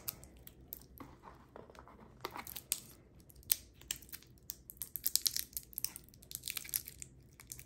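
Thin plastic packaging crinkling and tearing as it is picked and peeled off a pair of AAA batteries by hand: a faint, irregular run of small crackles and clicks that come thicker in the second half.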